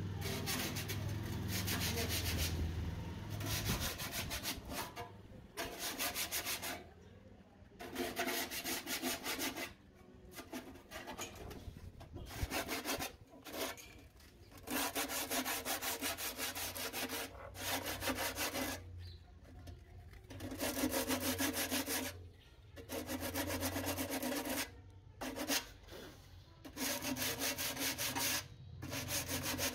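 Abrasive scraping on the motorcycle fuel tank's metal, in repeated bursts of a second to three seconds each with short pauses between, as the surface is worked down during the leak repair.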